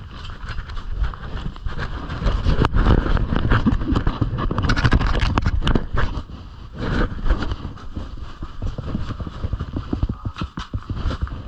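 Footsteps crunching and scraping on glacier ice in an irregular walking rhythm, over a steady low rumble.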